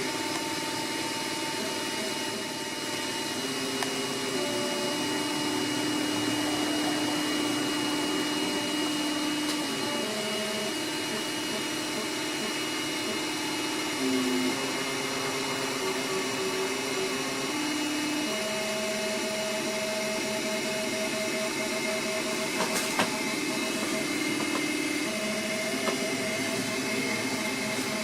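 3D printer running a print. Its stepper motors whine at pitches that jump every few seconds as the moves change, over a steady fan hiss.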